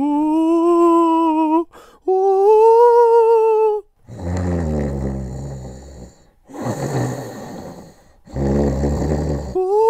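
Two long, wavering 'oooo' ghost moans from a person's voice, the second pitched higher, then three long snores from a sleeping small dog.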